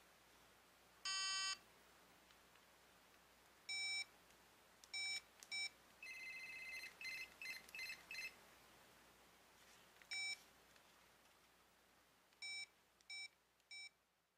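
Motorola StarTAC mobile phone giving electronic key-press beeps as its buttons are pressed, the first one longer than the rest. About six seconds in, a two-second run of quick, higher warbling tones plays, like a ring-tone sample while the volume setting shows on the display.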